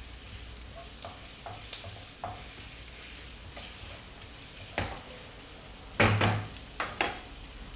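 Onions and green chilies sizzling in mustard oil in a non-stick pan as they are stirred with a spatula. A few light knocks early on give way to several sharper clatters of spatula and pan in the second half, the loudest about six seconds in.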